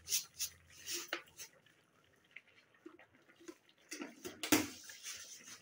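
Sugar pouring from a plastic jar into a pan of simmering grated carrots and milk, in several short bursts during the first second and a half, followed by a louder burst of noise about four seconds in.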